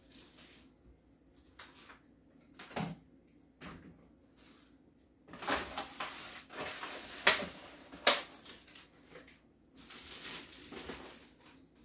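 Bottles and packaged food being picked up and set down on a kitchen countertop: scattered knocks and clatter, busiest in the middle, with two sharp clacks about seven and eight seconds in.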